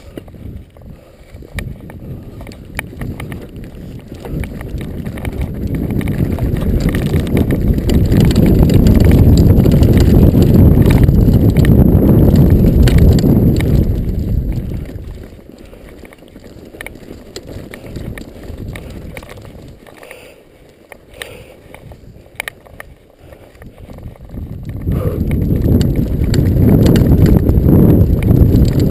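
Mountain bike riding a stony dirt trail, heard on a GoPro's microphone: a low rumble of wind and tyres rolling over rough ground, with scattered clicks and rattles. The rumble builds to its loudest a few seconds in, drops away about halfway through, and rises again near the end as the bike picks up speed.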